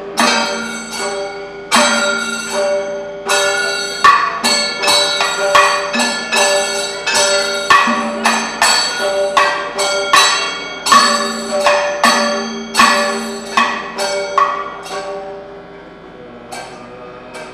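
Kathakali percussion music: sharp strikes with long metallic ringing, like a bell-metal gong and cymbals keeping the beat, roughly one to two a second, over a few held lower tones. It eases down in loudness near the end.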